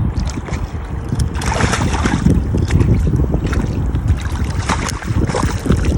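Wind buffeting the microphone: a steady low rumble with scattered crackles.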